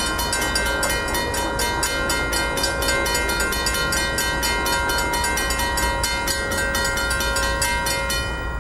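Railroad grade-crossing bell ringing rapidly, about five strikes a second, over the steady low rumble of a freight train rolling through the crossing. The bell stops just before the end while the train rumble goes on.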